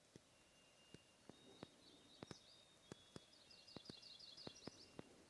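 Faint wild birdsong: long, pure whistled notes held at a few different pitches, and a quick trill of rapid notes in the second half. Scattered faint sharp clicks are heard throughout.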